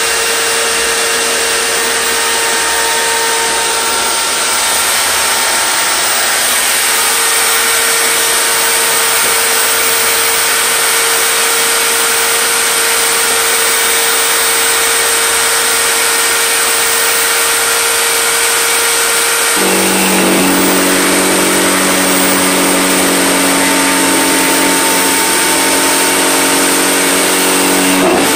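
Power tool mounted under a wooden table, running steadily at high speed while a board is pushed across it. About twenty seconds in its tone changes to a deeper, lower hum, which holds until just before the end.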